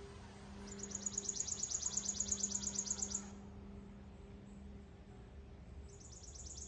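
A songbird's high, dry, rapid trill of about ten pulses a second, lasting about two and a half seconds and starting again near the end, over a faint steady low hum.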